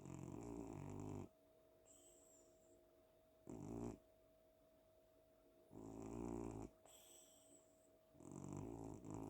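Domestic cat snoring in its sleep: four snores, one every two to three seconds, with a faint steady tone underneath.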